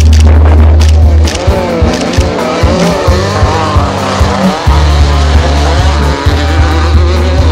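Off-road race vehicle engines revving up and down through the gears, over background music with a steady bass line.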